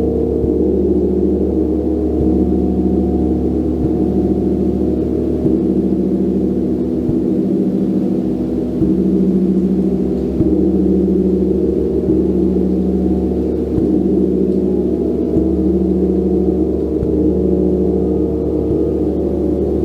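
A gong played continuously with soft, even strikes about every one and a half to two seconds, keeping up a dense, steady wash of overlapping low tones.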